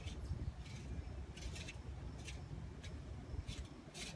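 Garden rake dragged through loose dirt, fluffing up the soil in repeated short scraping strokes over a low rumble.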